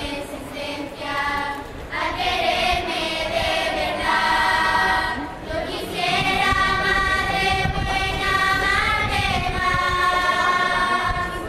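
School children's choir singing unaccompanied, holding long notes on a single melody line.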